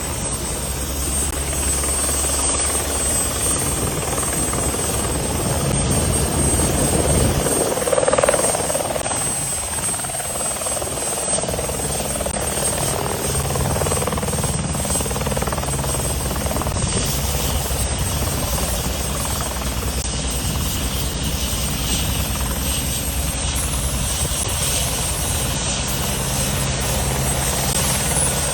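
Helicopter running steadily, its rotor beating in an even low rhythm over engine noise, with a brief louder swell about eight seconds in.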